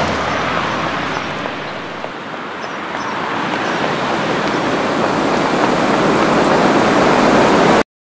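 Street traffic noise: a car passing by fades, then a broad rushing noise swells steadily louder and cuts off suddenly just before the end.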